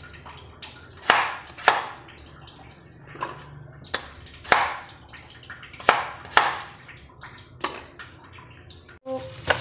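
Kitchen knife cutting through raw potato onto a wooden cutting board: about eight sharp, irregular knocks as each slice goes through.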